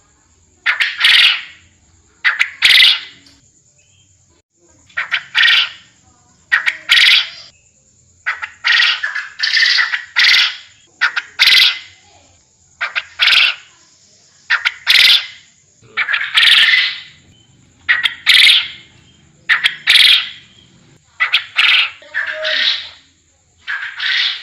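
Quail known locally as puyuh kebon calling over and over in short, harsh calls, often in pairs, about one every one to two seconds: a lure call used to draw wild quail in. A faint steady high whine runs underneath.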